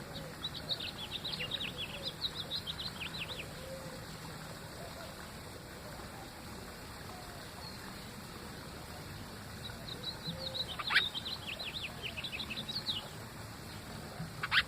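Small bird singing two bouts of rapid, high chirping phrases, with a couple of sharper, louder notes in the second half.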